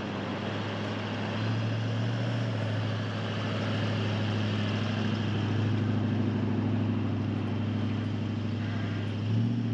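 Engine of a four-wheel drive towing a heavy off-road caravan at low speed over beach sand, with a steady low hum. It grows a little louder about a second and a half in as the rig draws close, and swells briefly near the end as it passes.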